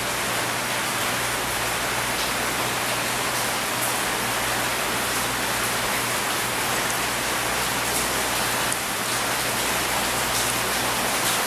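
Rain falling steadily, a loud even hiss, with a few faint ticks over it.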